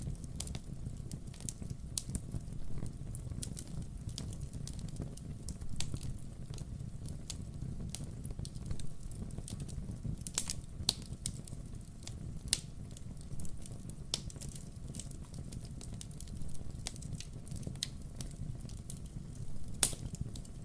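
Wood fire crackling in a fireplace: a steady low rumble of the flames with frequent irregular pops and snaps, a few louder pops around the middle and near the end.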